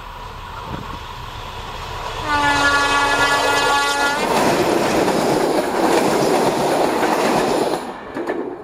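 ČD class 742 diesel-electric locomotive nearing a level crossing. About two seconds in it sounds one long horn blast, a full chord whose pitch sags slightly as it ends. Then the locomotive and its coaches pass close by, with engine noise and wheels clattering over the rail joints, and the sound falls away sharply near the end.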